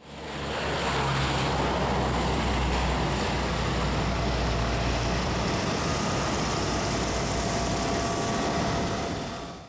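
Aircraft engine running steadily with a low hum. It fades in at the start and cuts off near the end.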